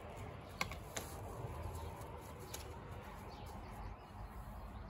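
A few sharp clicks and light rustling from handling a small plastic plant pot and working a geranium into the compost of a wooden planter, over a steady low background noise.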